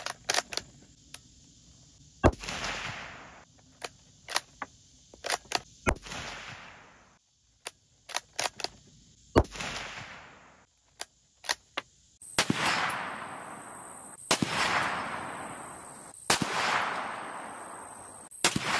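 .300 Blackout bolt-action rifle (Ruger American Ranch) firing three shots a few seconds apart, each crack trailing into a long echo, with the small clicks of the bolt being worked between shots. Later a second run of shots comes about every two seconds, each with a long rolling echo.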